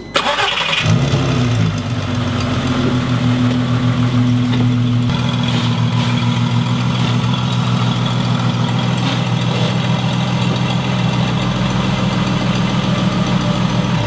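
Volkswagen GTI's 24-valve VR6 engine, with blast pipes in the exhaust, starting with a brief crank and then running steadily at idle. This is the first start after an oil pan gasket replacement.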